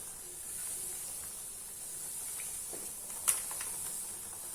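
Steady hiss of a pan of water at the boil on the stove, with one sharp tap about three seconds in.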